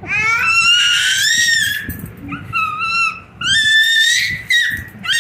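A young child's high-pitched squeals, about four in a row, each rising and then held, with short gaps between them.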